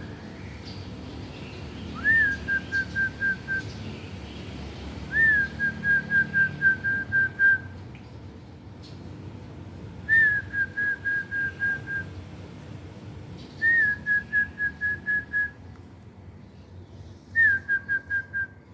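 Zebra dove (perkutut) cooing: five phrases, each a rising note followed by a quick run of short, even notes on one pitch, repeated every few seconds.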